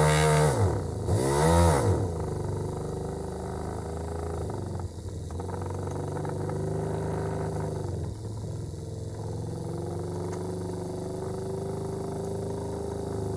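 Small electric drill in a drill stand running steadily, spinning a Delphi common-rail injector control valve against its seat to lap the sealing faces to a mirror polish. Its pitch drops and recovers twice in the first two seconds, then dips briefly again about five and eight seconds in.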